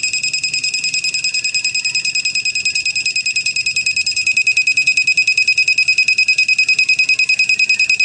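Electronic buzzer on a homemade school-bell controller sounding its scheduled bell alarm: one steady, high-pitched electronic beep tone with a fast flutter of about ten pulses a second.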